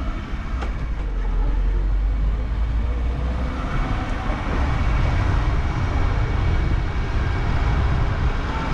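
Vehicle travelling on the road: a steady rumble of engine and tyre noise with a hiss over it, growing louder about three and a half seconds in.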